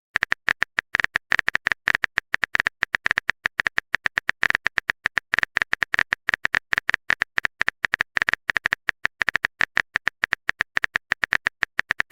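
Phone keyboard typing sound effect: a fast, uneven run of short clicks, about ten a second.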